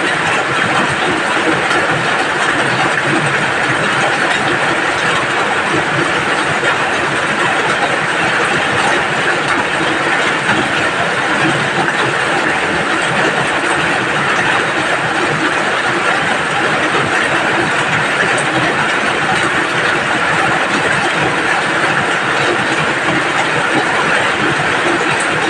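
Steady rain falling, a loud, even hiss that does not let up.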